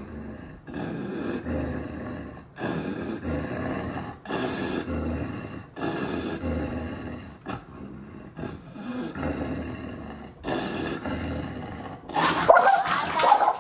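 Mixed-breed dog growling in repeated rough bouts about a second long, one after another, then a louder, higher snarl near the end. The growling goes with the dog's compulsive tail-biting.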